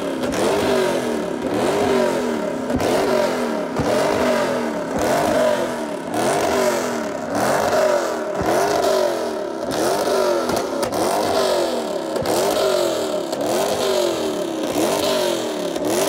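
Dodge Charger's engine revved again and again in a steady rhythm, its pitch climbing and dropping about once a second.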